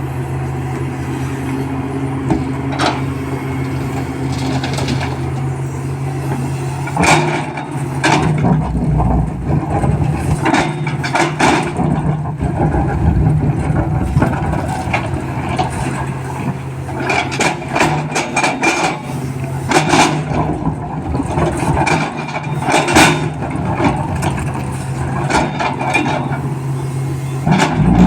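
Excavator's heavy diesel engine running steadily, with repeated knocks and clatter from about seven seconds in, typical of material being loaded into a tipper truck's steel body.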